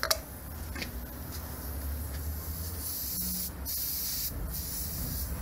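Air hissing out of a punctured Bridgestone Battlax motorcycle tyre as pliers work the embedded object in the tread. A click comes at the start, and the hiss grows stronger about halfway through in a few spurts.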